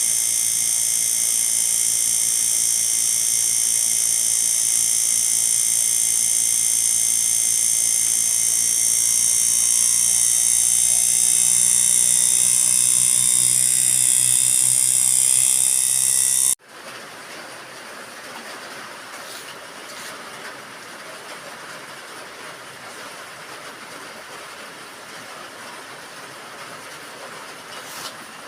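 A machine's steady high-pitched whine with several held tones, which cuts off suddenly about two-thirds of the way through and gives way to a quieter, even mechanical hum.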